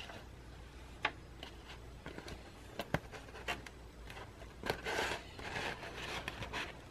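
Sheets of printed sticker labels being handled: light paper rustling with a few small clicks and taps, and a longer rustle about five seconds in.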